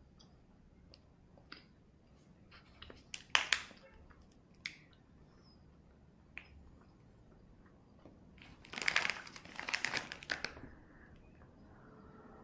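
Crinkling of a plastic candy wrapper being handled: a few sharp crackles, then a denser burst of crinkling lasting about two seconds near the end.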